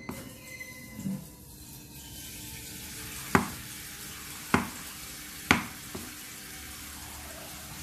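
Kitchen knife cutting soft boiled tofu on a plastic cutting board: sharp knocks of the blade hitting the board, three about a second apart and a fainter fourth, over a steady low hiss.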